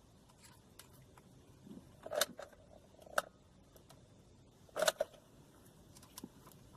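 A few short clicks and knocks of small objects being handled, with three louder ones about two, three and five seconds in, over quiet room tone.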